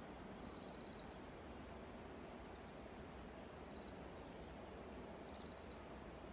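Quiet outdoor ambience: a steady low hiss with three short, high, rapidly pulsed trills from a small animal, each about half a second long, near the start, midway and near the end.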